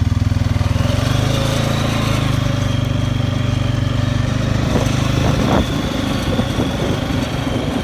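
A small engine vehicle running steadily, with a faint high whine over the engine. From about five seconds in, the engine sound eases and a few rattling knocks come through.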